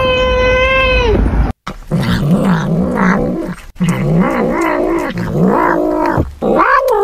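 A cat's long, steady meow that ends about a second in. After a brief break, a cat makes low, wavering vocal sounds while chewing cat grass, ending in a short rising meow.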